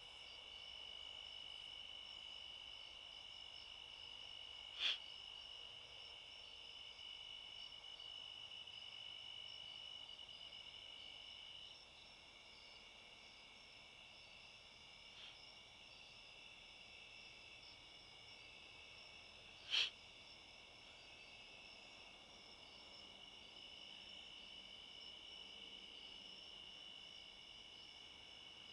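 Faint, steady night chorus of crickets, several insects trilling at different pitches; one of the louder trills stops about twelve seconds in. Two short sharp clicks stand out, one about five seconds in and one about twenty seconds in.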